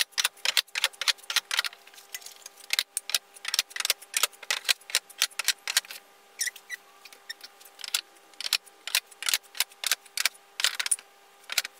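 Light, irregular clicking and clattering of small items being picked up and set onto shelving, several knocks a second, over a faint steady hum.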